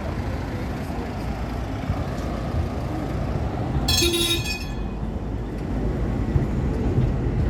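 Street traffic rumbling steadily, with one short car horn toot about four seconds in.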